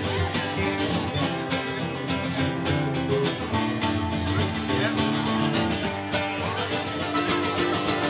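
Acoustic guitars playing an instrumental break in a country-bluegrass song, with quick picked notes over strummed chords.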